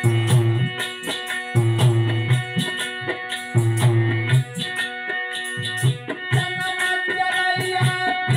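Instrumental interlude of Alha folk music: a harmonium holds sustained notes over a hand drum playing a repeating rhythm with deep bass strokes, with jingling rattle-like percussion on the beat. The deep strokes thin out in the last couple of seconds while the harmonium melody moves higher.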